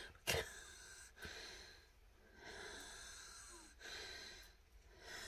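A person breathing close to the microphone, a few soft breaths in a row, with a sharp click about a third of a second in.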